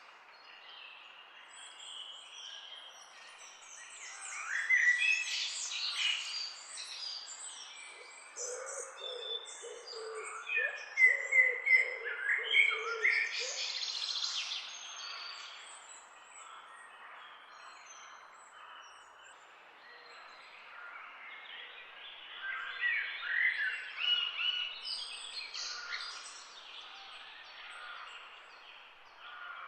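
Several birds chirping and singing in overlapping bursts of quick high notes that come and go, busiest about a third of the way in and again near the end, with a lower-pitched run of calls in the middle.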